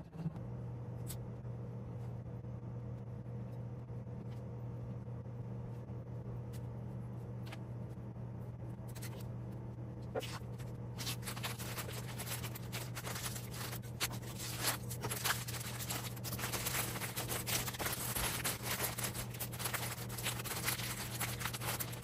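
A steady low hum, with a few light clicks in the first half; from about halfway, parchment paper and a plastic bag crinkle and rustle as a sliced loaf cake is wrapped by hand.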